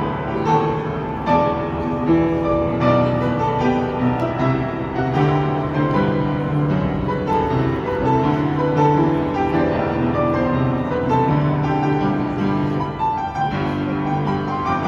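Piano playing a song, with held bass notes under a moving melody.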